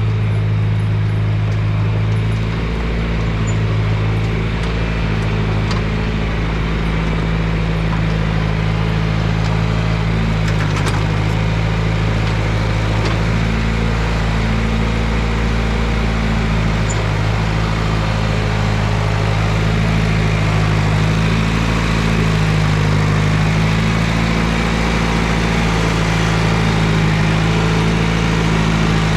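An engine running steadily at a low, even hum, its level and pitch shifting slightly now and then.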